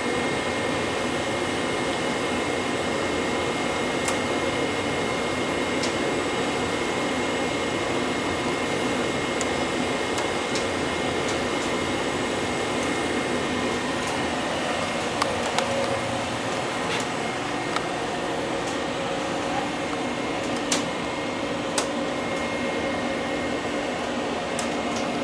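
Steady whir and hum of the air conditioning and onboard equipment inside a 285 series sleeper car standing at a station, with a few light clicks in the second half.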